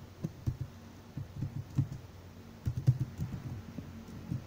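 Keystrokes on a computer keyboard as a word is typed: quiet, irregular clicks coming in short runs with brief pauses between them.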